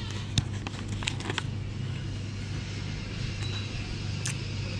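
Paper bag crinkling as a pastry is handled in it, with a few sharp clicks, over a steady low hum.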